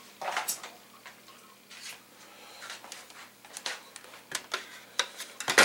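Irregular clicks and short rustles of a digital multimeter and its test leads being handled and set up, with a louder knock near the end.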